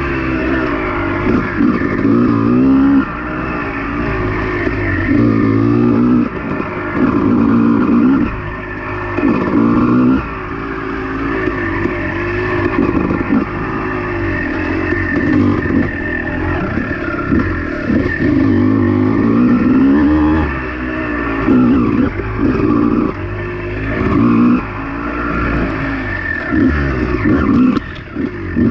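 Two-stroke Honda dirt bike engine being ridden, its pitch rising and falling again and again as the throttle is opened and closed.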